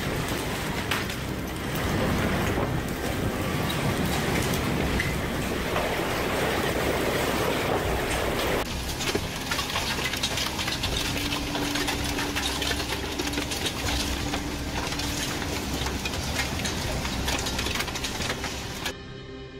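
Heavy wind-driven rain pouring down; about nine seconds in it gives way to a hailstorm, a dense rattle of hailstones striking roof tiles and the ground.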